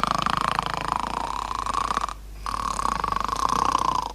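A girl snoring loudly in her sleep: two long snores of about two seconds each, a short pause between them, each a fluttering rattle with a high whistling tone that sinks slightly as it goes.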